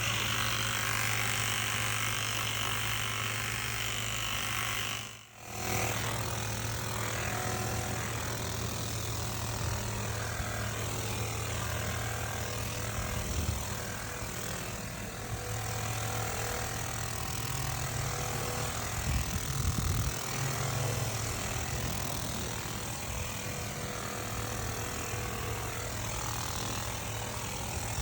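Craftsman cordless 350 psi pressure washer running and spraying: a steady motor-pump hum under a wide hiss of water spray. It cuts out for an instant about five seconds in, then starts again.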